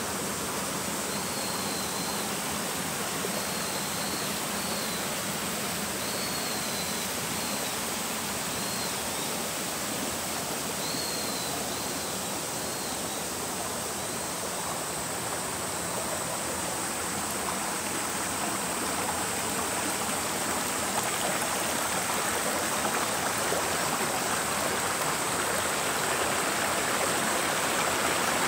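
Steady rush of a flowing woodland stream. A bird gives short, high chirps repeated through the first half.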